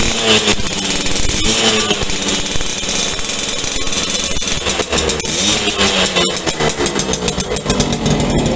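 Yamaha V75 two-stroke single-cylinder moped engine, bored up to 72 cc, running with its revs wavering up and down, then settling to a steadier note near the end. It is running after a new piston was fitted and the clutch was repaired.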